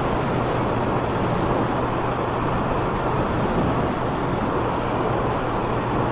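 Suzuki Bandit 1200 motorcycle riding at a steady cruise: a steady low inline-four engine note under loud, even wind rush on the action-cam microphone.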